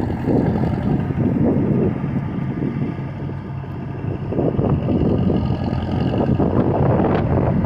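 A heavy equipment engine running steadily, with a low, even hum under a rumble that grows louder about halfway through.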